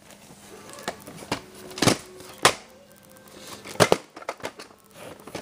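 Handling noise from a VHS tape box being picked up and moved by hand: a string of sharp knocks and clicks, the loudest about two and two-and-a-half seconds in and again near four seconds.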